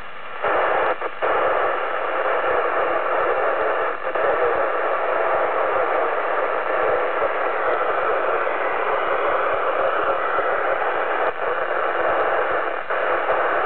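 CB radio receiver putting out a steady rush of static through its speaker, starting about half a second in, with a few brief dropouts, one about a second in and another near the end.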